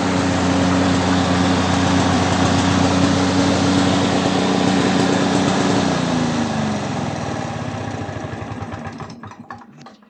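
Yamaha MT110 two-stroke lawnmower engine running steadily. About six seconds in, its pitch drops and it winds down, firing a few uneven last strokes before it stops near the end.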